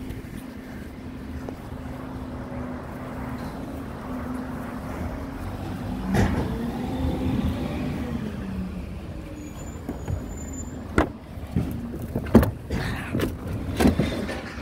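Recycling truck's engine running steadily, with a falling whine about six seconds in, then several sharp bangs in the last few seconds.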